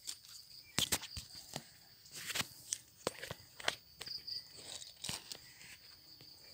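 Irregular footsteps and rustling through undergrowth, short crackles and brushing sounds, with insects trilling steadily in the background.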